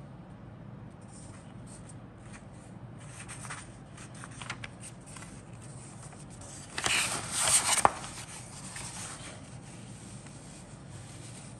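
Paper instruction booklet being handled and leafed through: soft rustles and crinkles, with one loud rustle of a page turning about seven seconds in that ends in a sharp snap.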